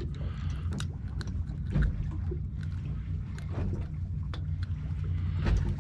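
Steady low hum from the boat, with water lapping against the hull and scattered small clicks and knocks.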